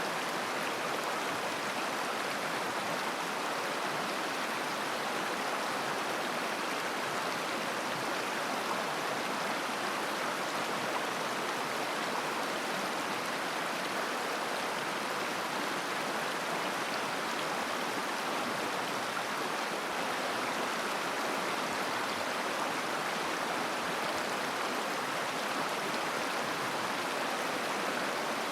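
River water flowing and babbling: a steady, even rush of running water.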